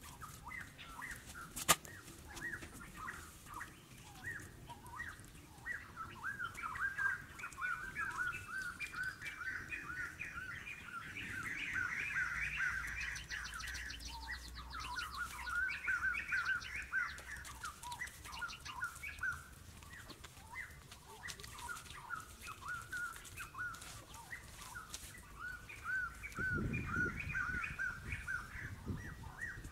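Small birds chirping in quick, continuous series, busiest in the middle, with a single sharp click about two seconds in.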